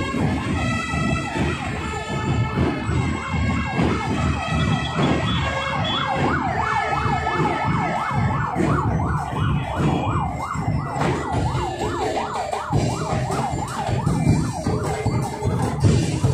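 An emergency-vehicle siren yelping, about four quick pitch sweeps a second, over parade drumming and band music.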